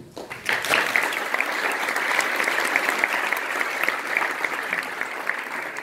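Audience applauding, many hands clapping together; the applause starts about half a second in and holds steady.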